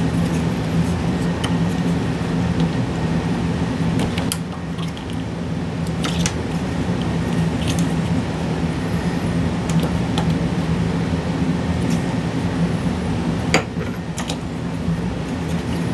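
Plastic GPU fan housing being pried apart with a painter's tool: a few sharp clicks and small scrapes over a steady low hum.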